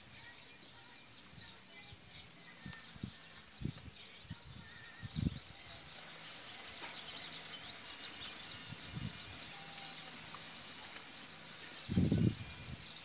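Outdoor background of small birds chirping. A few soft low thumps and knocks are heard, with a louder low rumble near the end.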